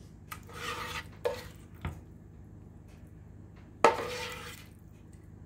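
A serving utensil scrapes and clanks against a pan while a thick, creamy chicken mixture is scooped out and dropped into a casserole dish. There are two bouts of scraping, each starting with a sharp knock; the louder one comes just before four seconds in.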